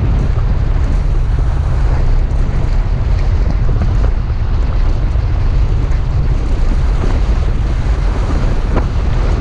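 Steady rumble of a Toyota FJ Cruiser driving through deep sand, with wind buffeting the microphone and a few light knocks.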